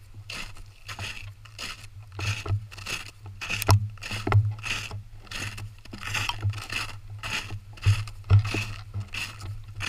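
Boots crunching through snow at a steady walking pace, about two to three steps a second, with a few sharper clicks mixed in.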